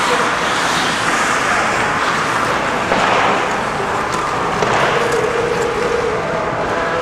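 Steady ice-rink noise during a hockey game: a continuous, even hiss with skates on the ice.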